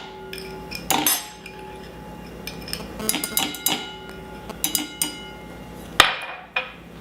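A spoon clinking and knocking against a bowl while apricot jam is scooped in, a few ringing clinks with the sharpest knock near the end.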